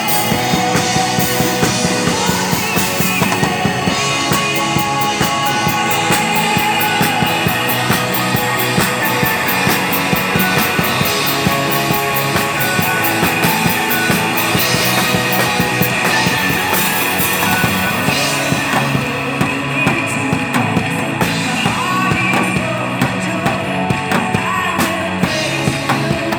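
Rock music with a drum kit played hard and fast along with it, and a voice singing.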